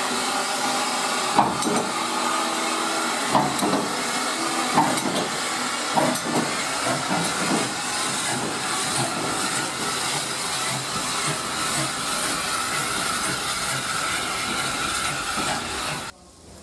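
SECR O1 class 0-6-0 steam locomotive No. 65 hissing steam from its cylinders, a steady loud hiss with a few sharp knocks in the first several seconds. The hiss cuts off suddenly near the end.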